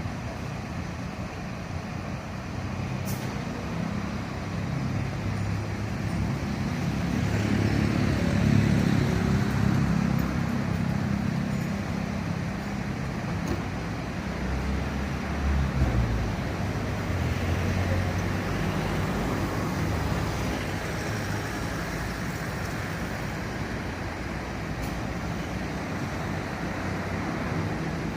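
Road vehicle engines and traffic noise, a steady low rumble that swells about eight seconds in, eases, and rises again briefly around the middle.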